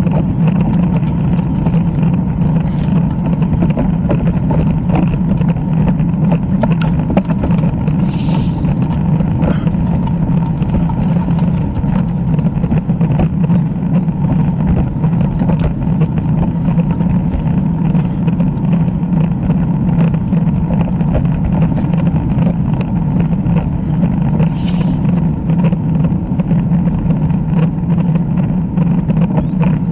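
Steady rushing noise of riding a road bicycle: wind and road noise on a bike-mounted camera's microphone, unbroken and loud.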